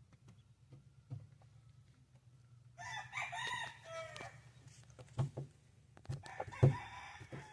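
A rooster crows once, a call of about a second and a half starting about three seconds in. Near the end come more calls mixed with a few sharp knocks.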